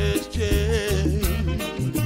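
A male voice singing a reggae song over a backing track with bass and drums, holding a long wavering note through the first half.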